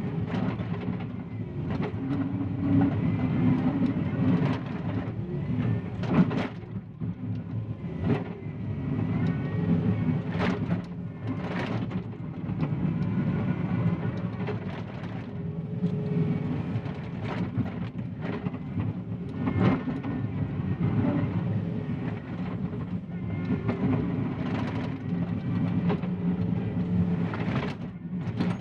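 John Deere 333E compact track loader working under load, its diesel engine running with the pitch rising and falling as it pushes dirt. Frequent sharp clanks and knocks come through the engine sound.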